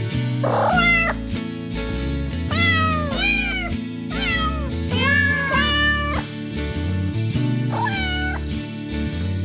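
Cats meowing: about six separate meows that rise and fall in pitch, two pairs close together, over background music.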